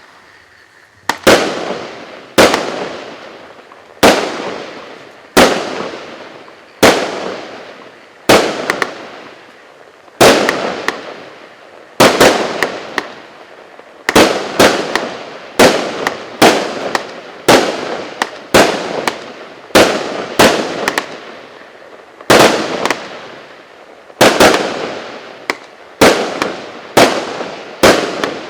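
A 36-shot consumer firework cake with 0.8-inch tubes firing: a short fuse hiss, then shot after shot, each a sharp bang with a fading crackling tail. The shots come about every second and a half at first and quicken to about two every second and a half from about halfway through.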